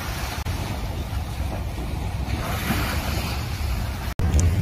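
Ocean surf washing on a beach, with wind noise on the microphone; the sound cuts out for an instant about four seconds in.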